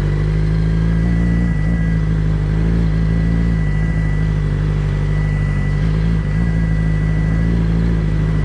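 2007 Suzuki GSX-R600's inline-four engine running at a steady, nearly unchanging pitch while the bike is ridden, with a thin steady high whine over it.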